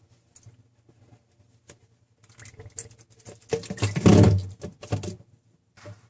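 Water being poured into a refrigerator freezer's drain trough to test the freshly cleared drain line, pattering and splashing in irregular bursts that are loudest about four seconds in. A few light clicks and knocks come first.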